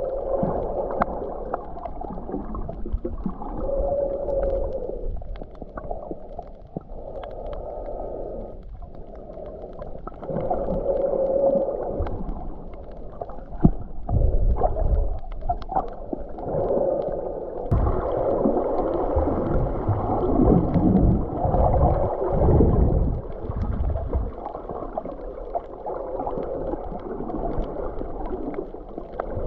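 Muffled sloshing and gurgling of water, dull and cut off in the highs, with uneven swells and a few sharp clicks; the sound turns brighter and fuller about eighteen seconds in.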